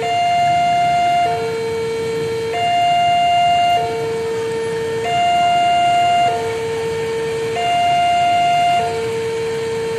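Two-tone warning siren alternating steadily between a high and a low note, each held about a second and a quarter, over a faint low rumble.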